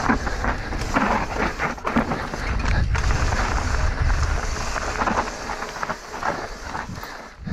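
Mountain bike descending a rough enduro trail at speed: wind rumbling on the camera microphone, tyres on loose rock and dirt, and the bike rattling with many sharp knocks over bumps. It eases off near the end.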